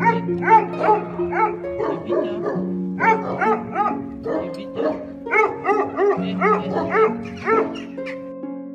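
A dog barking over and over in quick runs of about three barks a second, stopping near the end, over background music with long held notes.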